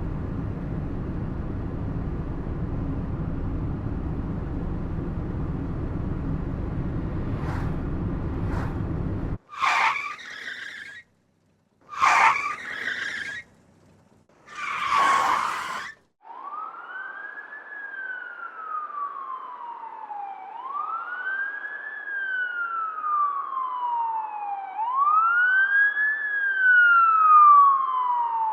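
A sequence of vehicle sound effects. First a steady low vehicle rumble runs for about nine seconds and cuts off suddenly, then come three short screeching bursts, each a second or so long. From about halfway through, an emergency-vehicle siren wails, rising and falling slowly about every four seconds.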